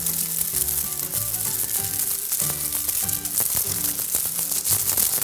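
Steady sizzling, crackling noise over background music.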